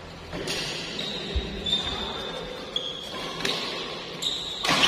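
Badminton rally: rackets striking the shuttlecock several times, with the loudest hit near the end, and sports shoes squeaking on the court floor.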